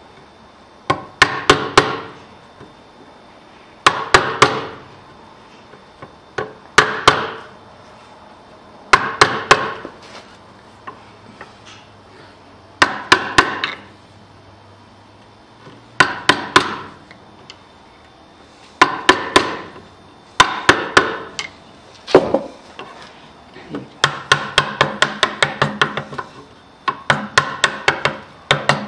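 Hammer tapping a wood chisel, chopping out a notch in a wooden piece a little at a time. Short bursts of three to six quick, ringing taps come every two to three seconds, with a faster run of taps near the end.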